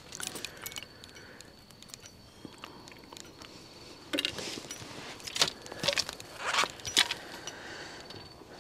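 Handling noises as a just-landed crucian carp is taken in hand: short rustling scrapes and sharp clicks, bunched between about four and seven and a half seconds in, with a few faint clicks at the start.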